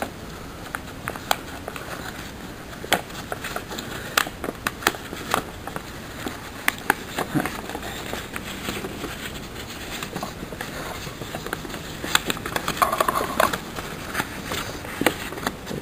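A sheet of paper being folded and creased by hand: irregular crisp crackles and rustles, with a denser stretch about 13 seconds in.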